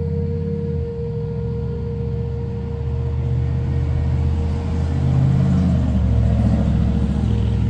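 Low rumble of thunder rolling for several seconds, growing louder about five seconds in, over a steady hum.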